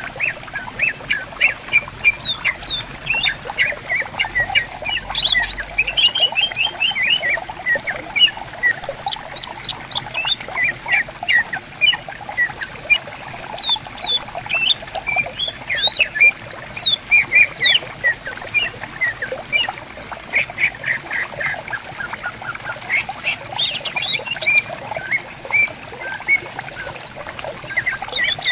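Cucak ijo (green leafbirds) singing and answering one another in fast, varied runs of short whistled and chirping notes, over the steady trickle of a flowing stream.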